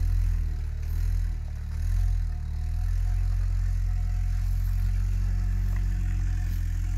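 Quad bike (ATV) engine pulling under load through deep bog mud, its revs rising and falling for the first couple of seconds and then holding steady.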